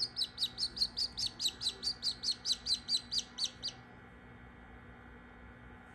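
Newly hatching Australorp chick peeping: a quick run of loud peeps, about four a second, each falling in pitch, that stops a little before four seconds in.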